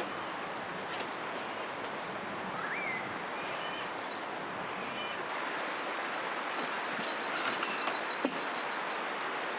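River water flowing: a steady rushing. Faint high whistles come over it, with a few sharp ticks in the second half.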